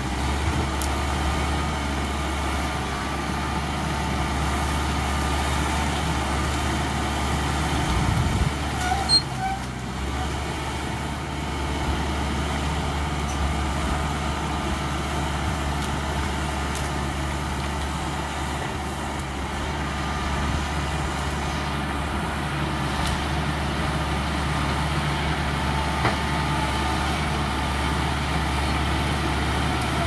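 CAT D5K XL crawler bulldozer's four-cylinder diesel engine running steadily under load as it pushes soil and brush, with a thin steady whine over the engine drone. A short sharp knock stands out about nine seconds in.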